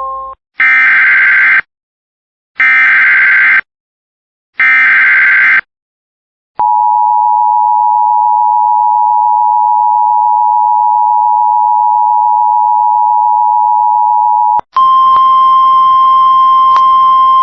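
Emergency Alert System tones: three one-second bursts of screechy SAME header data, then the EAS two-tone attention signal held steady for about eight seconds, then a single steady tone over a faint hiss that runs on to the end.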